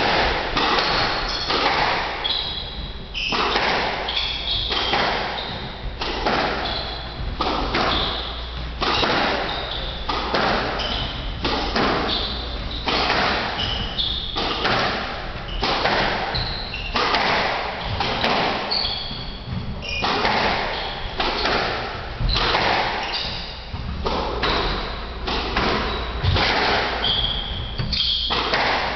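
A squash rally: the rubber ball thudding off racquets and the court walls, a hit every second or so, echoing in the enclosed court, with short sneaker squeaks on the hardwood floor.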